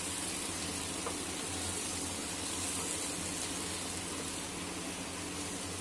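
Onion and tomato-puree masala sizzling steadily in hot oil in a pot as it fries.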